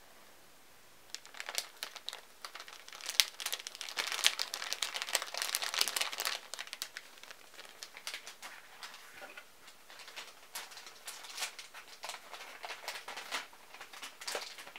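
Crinkly packaging being handled: dense, irregular crackling and rustling that starts about a second in, is loudest for a few seconds, then goes on more lightly with scattered crackles.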